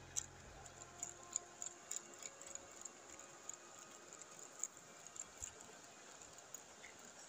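Faint, irregular clicking and ticking, with background music fading out in the first second.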